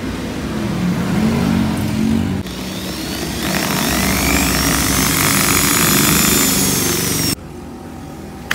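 Electric hand drill running and boring into a Yale dual-row pin cylinder, the bit grinding through the pins with thin squealing whines over the motor. This is drilling out the pins of a cylinder that could not be picked so that it will turn. The drilling cuts off abruptly about seven seconds in.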